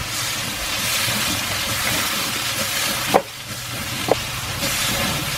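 Diced pork sizzling in a wok in soy-vinegar adobo sauce, a steady frying hiss. Two short clicks come about three and four seconds in.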